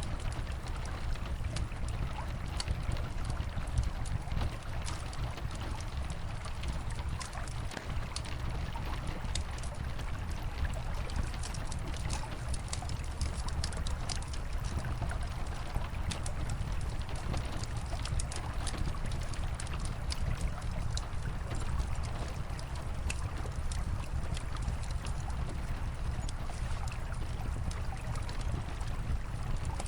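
Steady rush of flowing river water and falling rain, with frequent small sharp crackles and pops of a wood fire scattered throughout.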